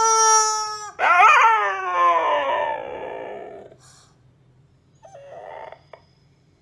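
A yellow rubber chicken toy squeezed once gives a steady, flat squawk of about a second. A husky then howls in answer, a wavering howl that falls in pitch over about three seconds. A short faint sound follows about five seconds in.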